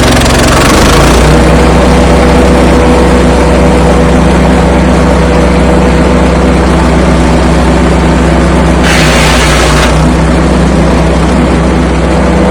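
Apache Timber Master 65 wood chipper's 196cc 6.5 hp Loncin single-cylinder petrol engine running at throttle just after a pull start with the choke off, picking up to a higher, steady speed about a second in. A hiss lasting about a second sits over it about nine seconds in.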